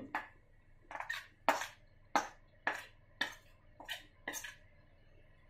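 A metal spoon clinking against steel vessels about nine times, roughly every half second, as jaggery syrup is scraped and tapped out into a stainless steel mixing bowl.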